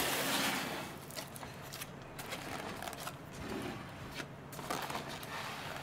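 Cardboard delivery box being handled: the lid is folded back with a papery rustle in the first second, then light scattered clicks and rubbing as the box is shifted on the table.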